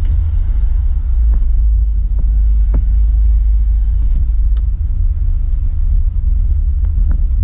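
Steady low rumble of a car heard from inside the cabin, with a few faint clicks.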